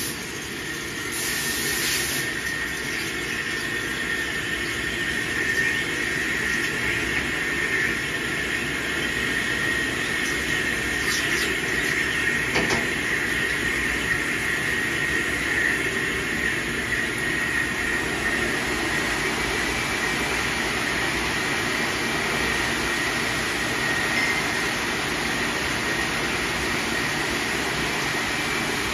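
Metal lathe turning a bar under a stream of coolant: a steady cutting noise with a thin high whine throughout, and a couple of brief clicks near the middle.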